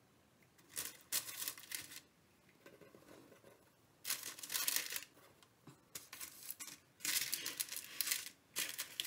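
Baking paper crinkling and rustling in several short bursts as rolled dough buns are pressed down onto a paper-lined baking tray.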